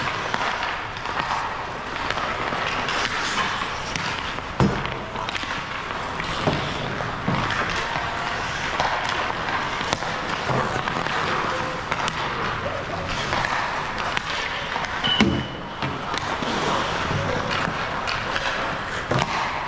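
Ice hockey rink sounds: skate blades scraping the ice, sticks and pucks clacking, and sharp thuds of pucks hitting the boards, the loudest a few seconds in and again near three-quarters of the way through.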